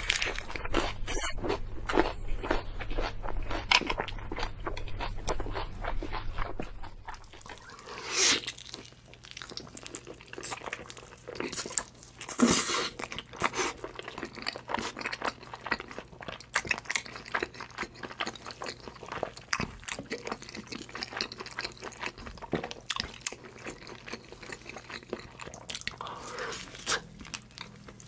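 Crunchy food being bitten and chewed close to the microphone: a dense run of crisp crunches, with a few louder bites. A low hum under the first part stops about a quarter of the way in.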